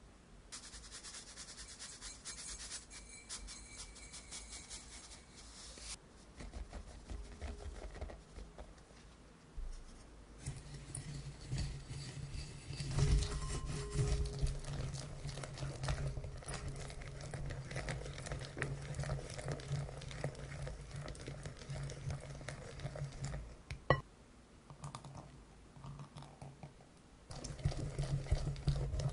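Wire whisk stirring and scraping a thick egg yolk, sugar and flour paste around a glass bowl, steady from about a third of the way in. Before that come lighter rustling and pattering as the dry ingredients go onto the yolks. One sharp knock comes near the end.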